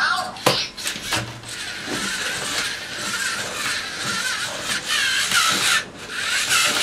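LEGO Mindstorms NXT scorpion robot walking: its servo motors whirring and plastic gears and legs clattering, with a few sharp clicks near the start.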